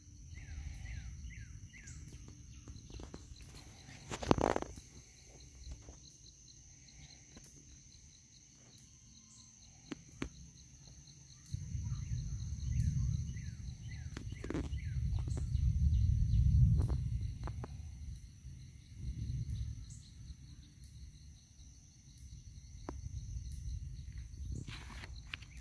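Evening insect chorus, with crickets trilling steadily at a high pitch and a few short bird chirps. There is a sharp tap about four seconds in, and from about halfway through a low rumbling noise on the microphone that comes and goes.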